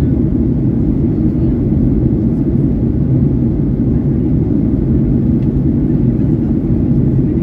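Steady low roar inside the cabin of a Boeing 737-900ER in flight after takeoff: its CFM56-7B turbofan engines and the airflow over the fuselage, heard from a window seat over the wing, with a faint low hum under the rush.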